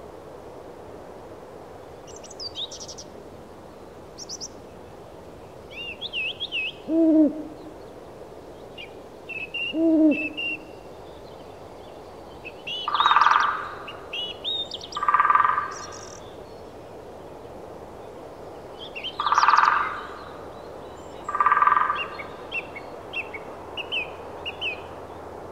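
An owl hooting with other birds calling over a steady outdoor hiss: two low hoots, then four louder calls in two pairs, with small birds chirping high in between.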